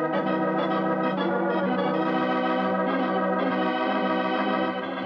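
Organ music bridge: sustained chords held for about five seconds, marking the scene change in the radio play, and dropping slightly in level near the end.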